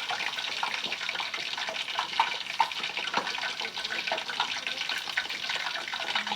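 Pepper steak in gravy and water sizzling and bubbling in a pan on medium heat: a steady hiss with many small pops throughout.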